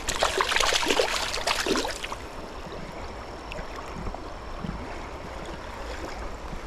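Water splashing for about the first two seconds, then the steady rush of flowing river water, with a faint thin high tone running under it.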